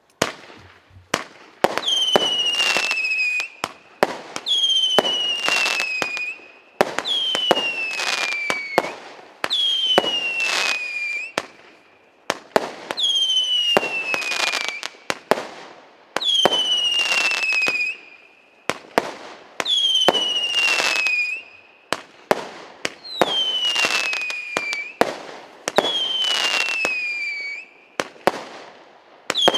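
РС9060 firework battery firing shot after shot, about one every three seconds, each launch followed by a whistle that falls in pitch for a second or so, with sharp bangs and crackling between.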